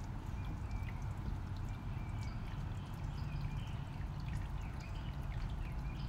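Steady low background rumble with faint, short high-pitched chirps scattered through it.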